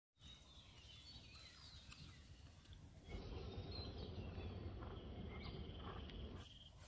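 Faint rural outdoor ambience: insects with a steady high-pitched tone and short bird chirps, over a low rumble that grows louder about three seconds in.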